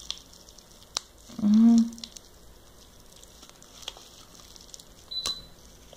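Light clicks and rustles of a small plastic packet being handled while it is opened to pour out, with a short hummed vocal sound from the person about one and a half seconds in.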